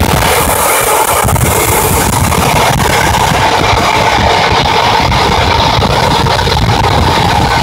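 Steady running noise of an electric train at speed, heard from inside the overtaking train: a dense low rumble with a constant hum and hiss over it.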